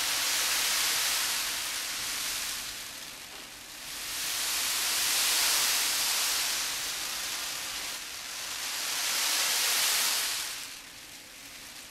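Adzuki beans rolled back and forth in a container as a traditional Japanese wave sound effect, a hissing rush that swells and recedes like surf. Three surges, one every four to five seconds.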